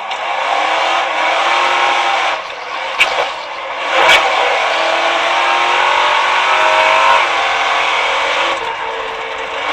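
Off-road racing car's engine revving hard under full throttle, its pitch climbing over a few seconds. Two sharp knocks come about three and four seconds in.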